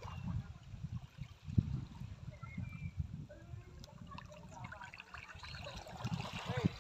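Small waves lapping and trickling at the edge of calm, shallow sea water on a sandy shore, coming and going irregularly.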